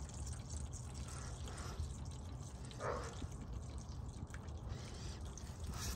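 Used synthetic motor oil draining in a thin stream from the open drain hole of a Hummer H2's oil pan into a drain pan: a faint, steady pour.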